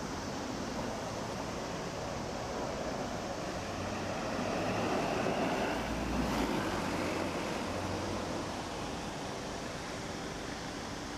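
Steady outdoor city traffic noise, swelling as a vehicle passes about halfway through.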